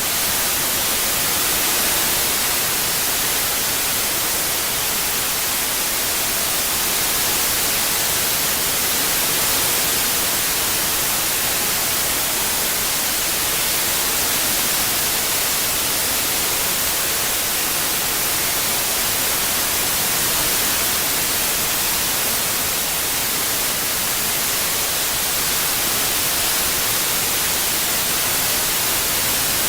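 Synthesised white noise: a steady, even hiss with its energy strongest in the high frequencies.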